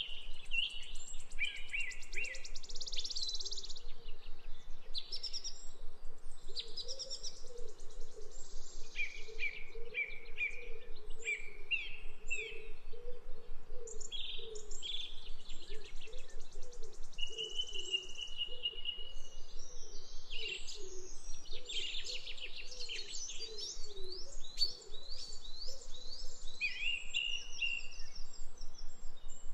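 A chorus of wild birds chirping and calling: many overlapping short chirps, rapid trills and whistles, with a lower, repeated wavering call underneath.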